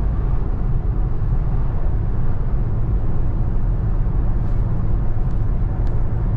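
Steady low rumble of road and engine noise inside a car's cabin while driving on a highway.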